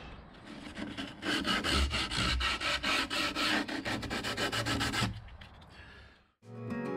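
Sandpaper hand-sanding the edge of a boat gusset panel, a rasping back-and-forth rub at about three strokes a second that starts about a second in and stops about five seconds in.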